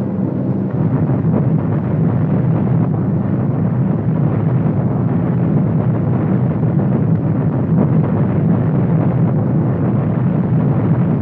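Continuous heavy rumble of bomb explosions on an old film soundtrack, thickening and growing louder about a second in, then holding steady.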